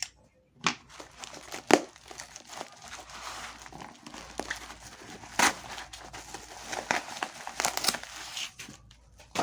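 Packaging crinkling and rustling as it is handled and unwrapped, with a few sharp crackles.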